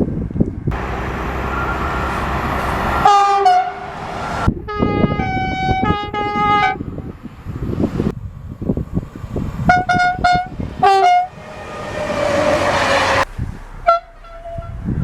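Train horns from several trains in quick succession: a long blast, then a run of alternating horn tones, then a series of short quick toots and a brief final toot. The rumble of passing trains fills the gaps between them.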